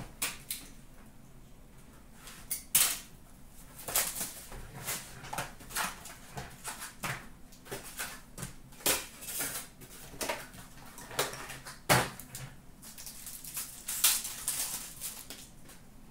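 Hockey card box and foil packs being handled and opened by hand: a run of cardboard and wrapper rustling and crackling with sharp snaps, the loudest about 3, 12 and 14 seconds in.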